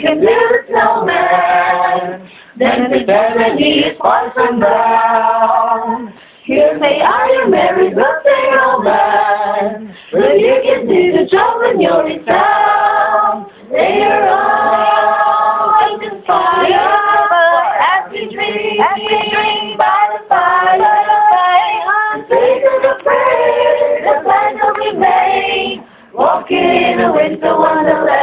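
A choir singing a cappella in phrases of a few seconds each, with short breaks between the phrases.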